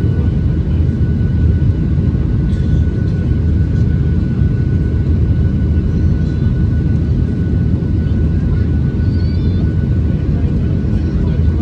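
Steady roar of a Boeing 737's jet engines heard from inside the passenger cabin in the climb after takeoff, a deep rumble with a thin constant whine above it.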